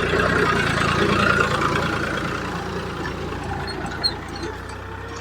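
A heavy vehicle's engine idling steadily, growing a little quieter after about two seconds, with a short sharp click about four seconds in.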